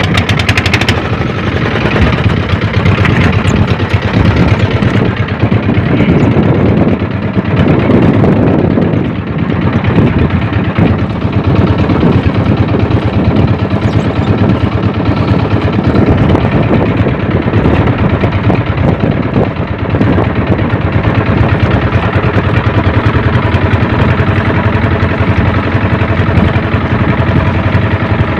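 Engine of a motorized outrigger boat (bangka), heard from on board, running loudly and steadily as the boat moves.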